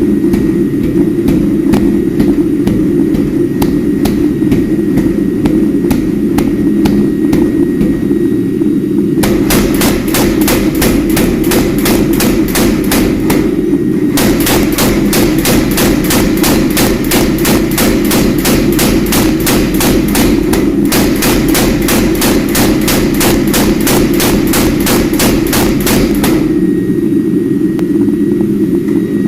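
Rapid, evenly spaced hammer blows forging steel, faint at first, then loud from about a third of the way in until shortly before the end. A steady low roar runs beneath them.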